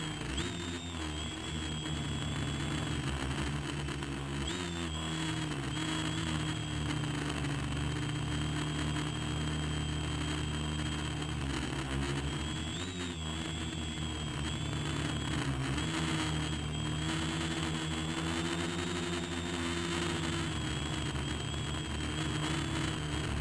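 Small radio-controlled aircraft's motors and propellers heard from the camera mounted on it: a steady high whine over a lower buzz, the pitch shifting briefly about four seconds in and again about twelve seconds in as the throttle changes.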